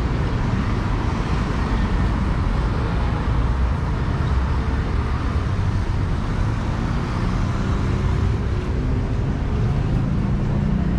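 Steady city road traffic: cars and engines running along wet streets, a continuous even din.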